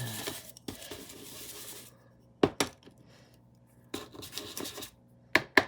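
Light clinks and taps of painting tools against glass or ceramic dishes, after a soft scrape at the start, with two sharp clicks near the end.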